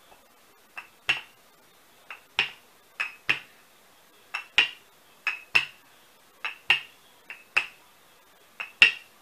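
Wooden rolling pin working dough on a floured wooden table, with sharp clacks in pairs, a small one and then a louder one, about once a second with each back-and-forth stroke.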